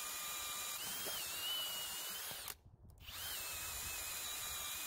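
Kobalt 24V brushless drill spinning a 5/8-inch spade bit in low gear, boring holes: a steady motor whine whose pitch shifts as the bit loads. It stops briefly about two and a half seconds in, between the two holes, then runs again.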